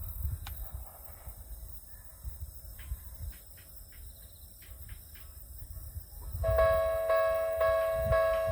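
Low gusts of wind noise on the microphone, then about six and a half seconds in a Japanese level crossing's electronic warning bell starts, a bright tone repeating about twice a second, signalling that a train is approaching.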